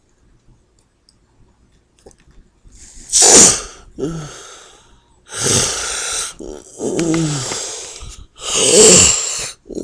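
A sleeping person snoring with sleep apnea: quiet for about three seconds, then a loud snorting gasp, followed by snores that alternate between breathy snorts and low droning snores falling in pitch. The two snorting gasps, about three and nine seconds in, are the loudest.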